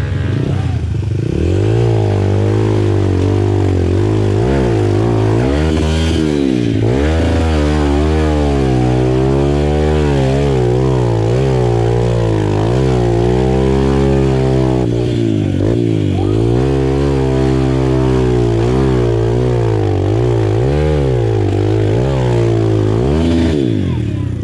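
Off-road trail motorcycle engine revving hard, its pitch climbing and dropping again and again as the throttle is worked.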